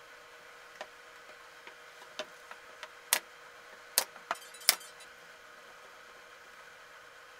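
Pneumatic brad nailer firing three sharp shots into plywood, under a second apart, the later two trailed by a short hiss. Before them, lighter clicks and taps of wooden parts being fitted together.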